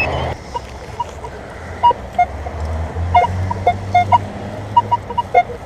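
Minelab X-Terra Pro metal detector giving short, scattered beeps at two or three different pitches as the coil is swept over targets, over a low rumble.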